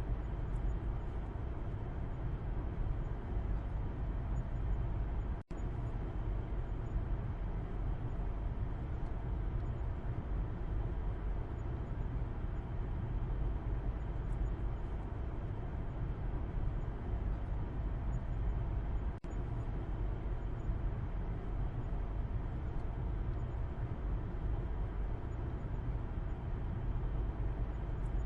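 Car interior road noise heard from the back seat while driving: a steady low rumble of tyres and engine under an even hiss. The sound cuts out for an instant twice.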